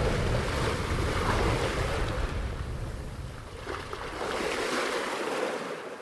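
Sea water rushing and splashing along the hull of a sailing ketch under way through rough seas, with wind buffeting the microphone as a low rumble. It fades out near the end.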